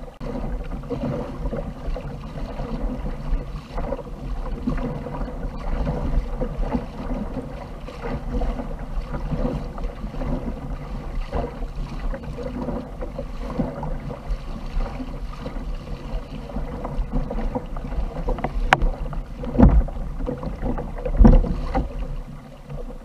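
Sea water slapping and sloshing against a plastic fishing kayak's hull, with a low wind rumble on the microphone. Two louder thumps come near the end.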